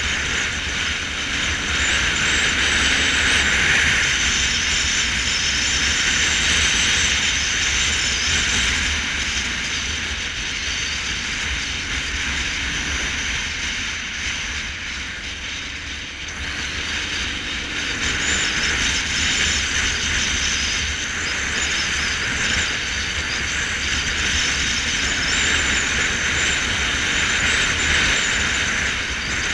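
Motorcycle riding along a paved road: steady wind rush and road noise on the camera microphone, with a low rumble beneath. It eases around the middle and then builds again.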